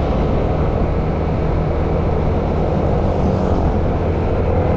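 Yamaha motor scooter riding along a road: steady engine hum under a constant rush of wind and road noise.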